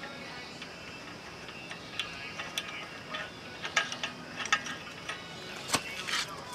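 Scattered metallic clicks and taps of hand tools and parts being handled during motorbike clutch work, coming more often in the second half.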